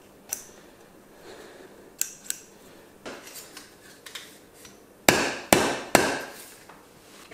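A few light metal clicks, then three sharp hammer blows on metal about half a second apart, each with a short ring. The blows drive a ring on a motorbike suspension tube back into place over its retaining clip.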